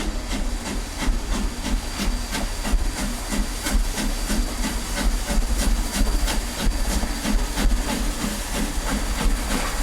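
1924 ALCO 2-6-2T steam tank locomotive running, with a steady hiss of steam over a fast, even rhythmic beat and a heavy low rumble.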